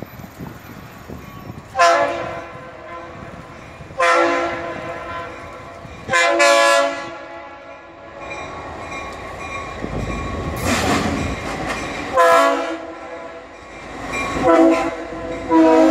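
Air horn of a Florida East Coast GP40-2 diesel locomotive blowing a series of loud long and short blasts as it approaches a road crossing, the crossing warning. The first blast starts about two seconds in. Locomotive and rail rumble fills the gaps between blasts.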